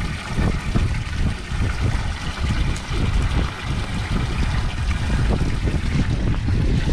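Wind buffeting the microphone in uneven gusts, over water trickling and splashing around a small boat.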